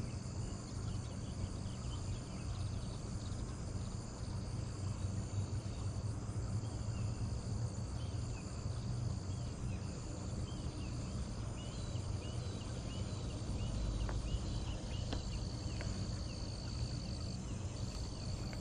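Steady high drone of insects over a low, steady rumble, with a run of short high chirps about halfway through.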